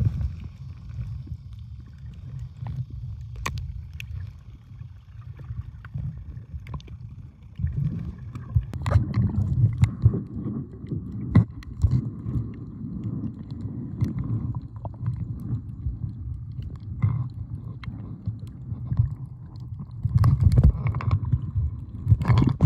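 Underwater sound picked up by a phone held below the surface: a muffled low rumble and gurgling of moving water that swells and fades, with scattered sharp clicks.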